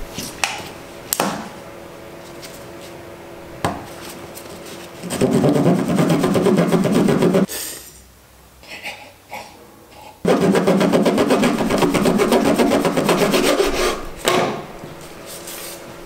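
A serrated bread knife sawing through a tape-wrapped car wiring harness to cut off a connector. A few light knocks come first, then two spells of rapid sawing strokes with a short pause between.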